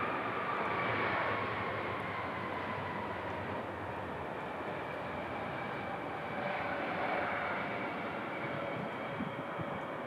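Embraer E175's twin GE CF34-8E turbofan engines during the landing rollout: a steady jet whine whose tones slowly fall in pitch as the engines wind down.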